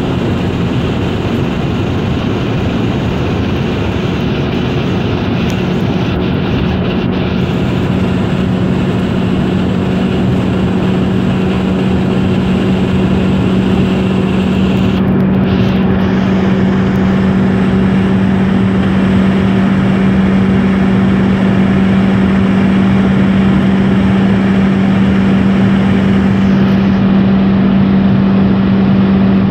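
Car with a 1.8-litre ADR four-cylinder engine at a steady high speed: an even engine drone over road and wind noise, slowly getting a little louder.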